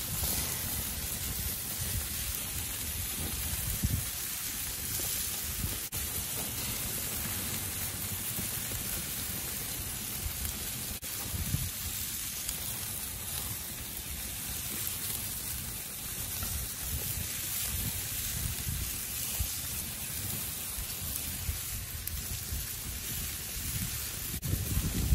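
Pork spare ribs and chicken drumsticks sizzling on a gas grill over lit burners: a steady hiss, with low, uneven wind rumble on the microphone.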